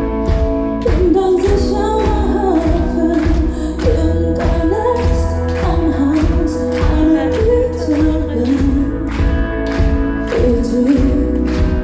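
Pop song with a woman singing over a band, with a steady drum beat and heavy bass.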